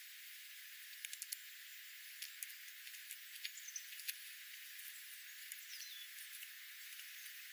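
Small wild birds calling with many short, sharp chips and ticks and two brief downward-sliding whistles, over a steady hiss.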